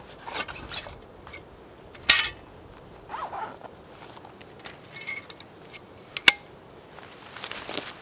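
Short rasps, scrapes and rustles of something being handled, with one loud zipper-like rasp about two seconds in and a single sharp click just after six seconds.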